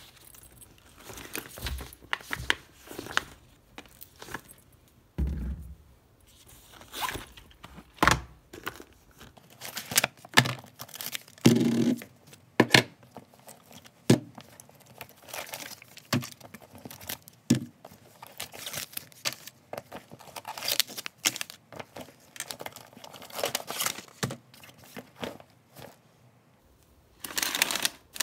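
Groceries being unpacked by hand from a fabric backpack: packaging rustling and crinkling, with irregular knocks as boxes, cans and plastic tubs are set down on a table. Near the end a plastic snack bag is handled, giving a longer crinkle.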